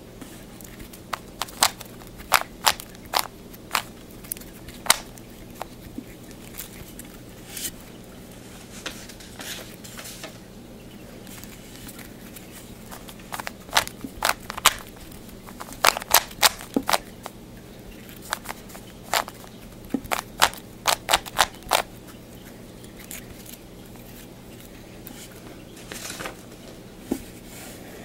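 Plastic clicks and clacks of a 3x3 Rubik's Cube's layers being turned by hand, in bunches of quick turns separated by pauses of a few seconds, over a faint steady low hum.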